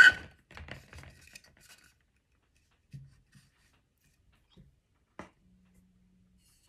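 Handling noise of toy tree pieces being taken from a cardboard box and put together. It opens with a sharp knock that rings briefly. Rubbing and scraping follow for about two seconds, then a few soft knocks as the pieces are fitted and set down on the table.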